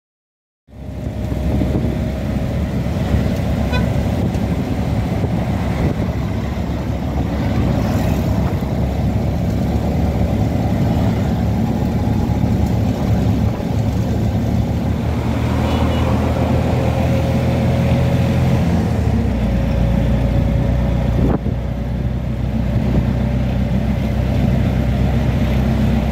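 CNG auto-rickshaw engine running steadily, heard from the passenger seat with road and wind noise. The engine note shifts about nineteen seconds in.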